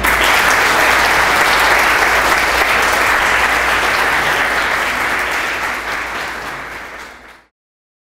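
A roomful of people applauding, a dense steady clapping that fades over its last couple of seconds and then cuts off abruptly to silence near the end.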